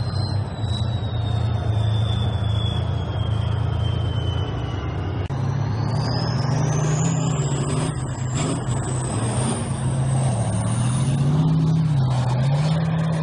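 Main battle tanks driving past with their engines running. A deep engine note rises and falls in pitch as the tanks move, over a steady rumble. A thin high whine slides down, then climbs steeply about halfway through.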